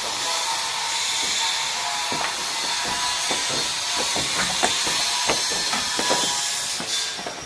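A steady hiss with scattered light knocks: workers' footsteps on corrugated metal roof sheets.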